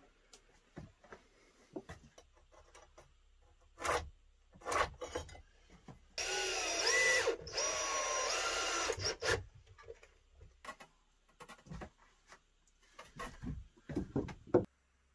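Cordless drill running into a wooden board for about three seconds midway, its whine dipping and rising as the bit bites. Scattered knocks and clatter of boards being handled come before and after it.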